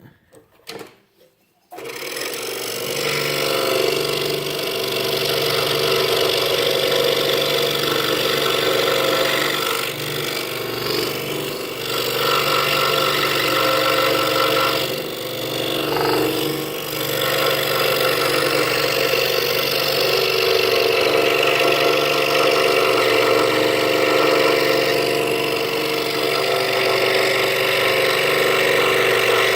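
Scroll saw starting about two seconds in and running steadily, its Pegas blade cutting half-inch pine, with a couple of brief dips in level partway through.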